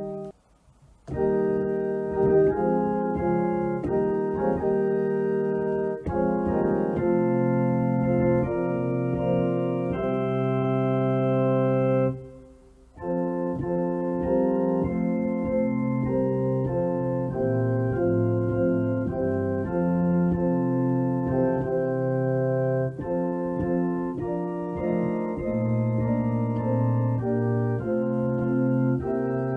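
Organ music: slow, sustained chords that change every second or two, with a brief break just after the start and another about halfway through.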